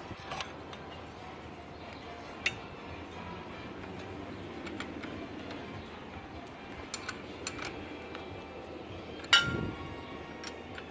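Scattered metallic clinks and taps of hand tools and parts as an outboard's lower unit is bolted back on. The loudest is a single ringing clank with a dull thud about nine seconds in.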